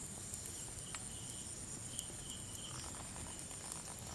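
Night-time outdoor ambience of insects: a steady high-pitched insect drone with a few faint short chirps, and a couple of small clicks.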